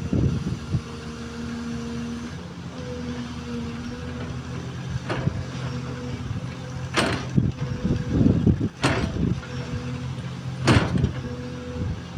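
XCMG XE215C excavator's diesel engine running steadily under work, with a few sharp knocks from the machine, the loudest about seven seconds in and again near the end.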